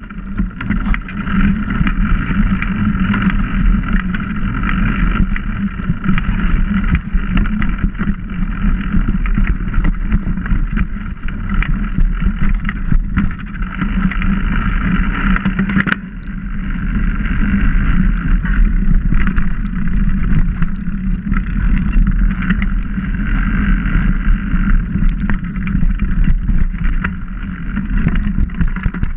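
Mountain bike riding fast over a dirt forest trail, heard through a camera mounted on the bike: a loud, steady rumble and rattle from the tyres and frame, with scattered small clicks and knocks. It eases briefly about halfway through, then picks up again.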